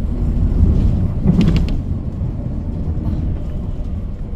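Steady low engine and road rumble inside a moving city bus, with a short louder sound about a second and a half in.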